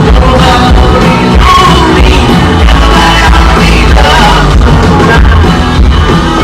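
Blues-rock band playing live and loud: distorted electric guitar, bass and drums, with a voice singing over them.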